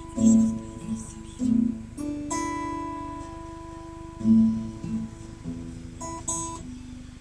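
Guitar played slowly: single plucked notes and chords, one after another, each left ringing.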